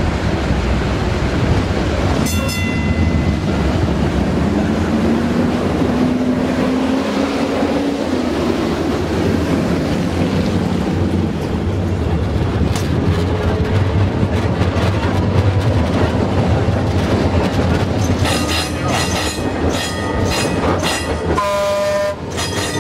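A historic PCC streetcar running on its rails: steady rumble and wheel noise on the track, with the motor whine rising in pitch as the car picks up speed. A short ringing tone sounds a couple of seconds in, and near the end comes a quick run of rapid ringing strikes.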